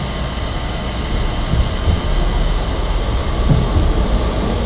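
Steady low running rumble of a Toyama Chiho Railway 9000-series low-floor tram, heard from inside the passenger cabin.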